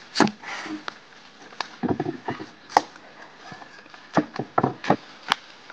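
Chinese cleaver chopping through fresh white radish onto a bamboo cutting board: about ten sharp, irregular chops, each with a short crunch of the crisp radish flesh.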